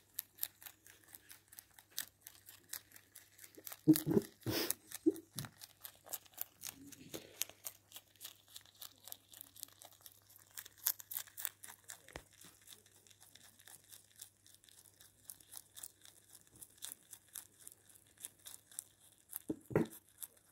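A pet rabbit chewing dandelion leaves: a rapid run of small, crisp crunching clicks as its teeth work through leaf and stalk, with a couple of louder bumps about four seconds in and near the end.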